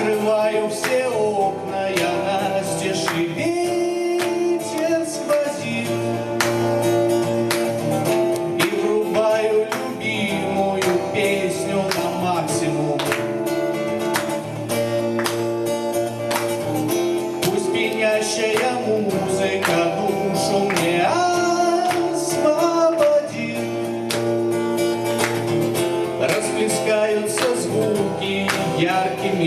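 A man singing a song to strummed acoustic guitar.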